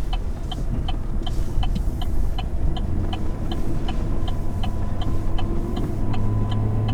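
Vehicle engine running steadily, with a regular ticking about twice a second; the engine note steps up and gets stronger about six seconds in.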